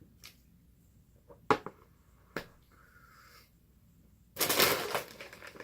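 A few faint clicks, then about four seconds in a loud crinkling of a plastic snack bag being handled.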